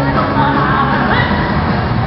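Rock band playing live at loud volume, with amplified electric guitars and the full band heard from the crowd.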